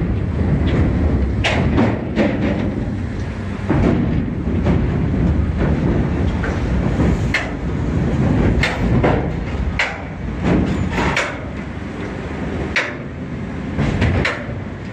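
Heavy machinery rumbling steadily, with scattered metallic clanks and knocks: a mobile crane working a hydraulic rotary-brush machine for cleaning gondola railcars.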